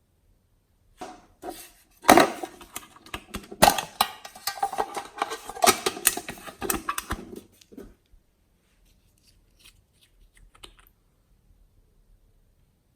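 Glossy slime being squeezed and worked by hand, giving dense sticky clicks and crackles for about six seconds, then only a few faint clicks after about eight seconds in.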